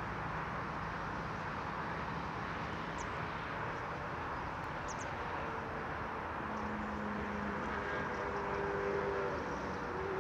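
Steady hum of distant city traffic, with a couple of faint high chirps. Soft sustained tones fade in during the second half.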